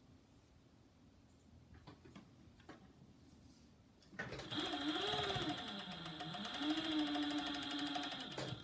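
Juki MO-6700-series industrial serger sewing the waistband seam. It starts about four seconds in and runs for about four seconds, its speed rising and falling. Before it, only a few faint clicks of fabric being handled.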